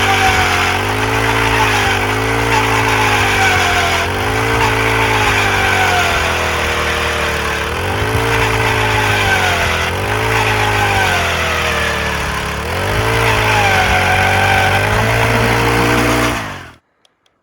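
Background music with a pulsing bass line and a lead that swoops up and down in pitch in repeating phrases, cutting off abruptly near the end.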